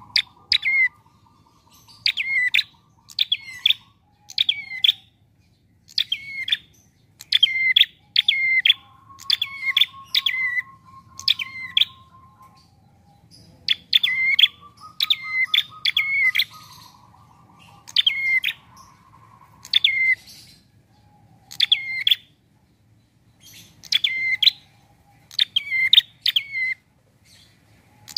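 Caged prenjak songbird calling over and over: sharp, high notes that sweep downward, mostly in quick pairs, about once a second. At times a lower, even, buzzing trill runs beneath the calls.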